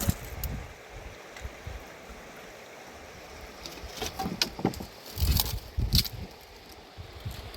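Mountain river water running steadily. About four to six seconds in come a cluster of irregular sharp water sounds and low thumps, typical of water being splashed and stirred near the microphone.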